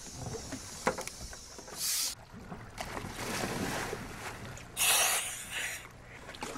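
Wind and water sloshing around a dive boat, with a short rushing surge of noise about two seconds in and a louder splash about five seconds in as a diver goes into the water.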